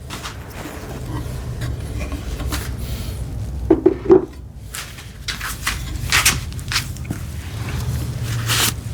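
Workshop handling noise during a cabinet glue-up: scattered knocks and rubbing of wooden parts and clamps, with two sharp clacks close together about four seconds in.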